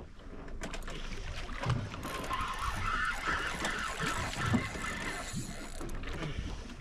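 Wind and sea noise on a boat, with the irregular clicking whirr of a large spinning reel being wound as a heavy fish is pumped up from deep water.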